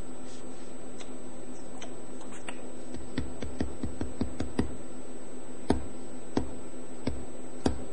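A run of short, sharp taps, a few scattered at first and then evenly paced about every two-thirds of a second in the second half, over a steady low hum.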